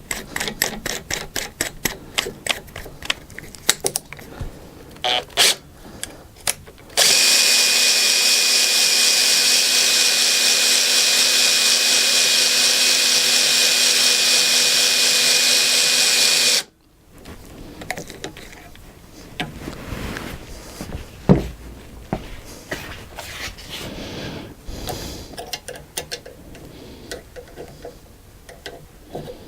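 Power drill running steadily for about ten seconds, then cutting off suddenly, presumably spinning the Z-axis ballscrew to run the mill's slide down. Before it there is rapid clicking, and after it a few light knocks of handling.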